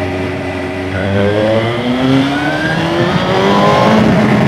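Suzuki GSR 750's inline-four engine accelerating through a new aftermarket slip-on silencer under way. The note climbs in pitch for about two seconds, dips about three seconds in, then climbs again over wind noise.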